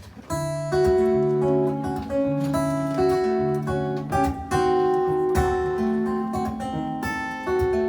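Acoustic guitar strumming chords in a song's instrumental intro, coming in about a third of a second in.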